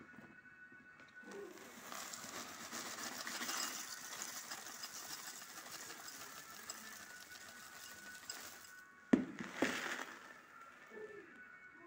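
Dry cornflakes poured from a bag into a bowl: a long rustling patter of flakes lasting several seconds. It is followed by two sharp knocks about nine seconds in.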